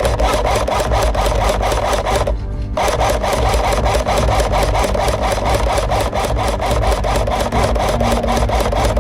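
Background music with a fast, even pulse; the high end drops out briefly about two and a half seconds in, and a steady held note sounds near the end.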